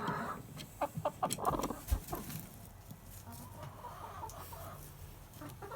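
Hen on the nest clucking and grumbling: a few short sharp clucks and a brief louder call about a second in, then softer low clucking. She is agitated at having her eggs taken from under her.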